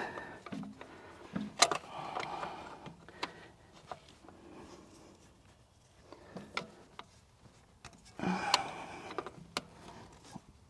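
Channel-lock pliers working at a stuck spin-on oil filter: a scattering of sharp metal clicks and short scraping rustles as the jaws slip and re-grip. The filter is too tight to turn.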